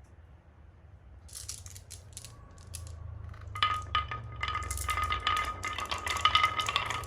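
Marbles clicking and rattling as they roll down a wooden HABA marble run: a few scattered clicks at first, then a dense, louder clatter from about halfway with a steady ringing rolling tone.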